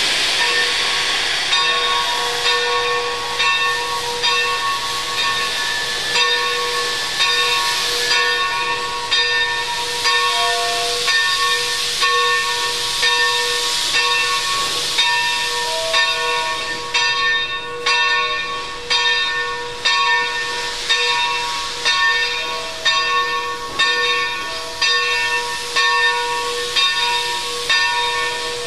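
Steam locomotive's bell ringing steadily, struck about once a second, over a loud continuous hiss of escaping steam.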